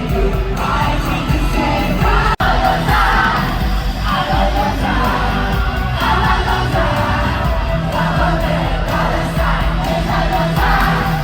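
Live K-pop concert: loud amplified music with singing, and an arena crowd singing and shouting along, heard from within the audience. A momentary dropout cuts the sound about two seconds in.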